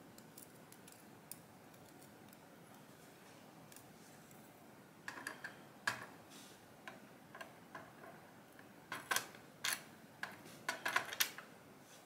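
Small, sharp metal clicks and ticks of steel tweezers working the sidebar and its spring out of an ASSA Twin V-10 lock plug. A few faint ticks at first, then a scatter of louder clicks from about halfway, bunched closest together near the end.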